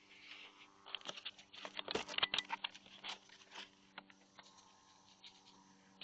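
Close, irregular scratching and tapping on the small onboard camera as it is handled, loudest a couple of seconds in, over a faint steady electrical hum.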